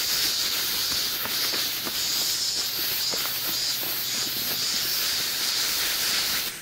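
Cicada chorus: a steady, high-pitched shrill hiss that cuts off suddenly near the end.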